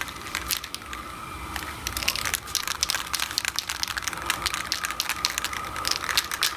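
Aerosol spray paint can fitted with a plastic trigger handle being shaken hard, its mixing ball rattling inside in a fast run of sharp clicks. This mixes the paint before spraying.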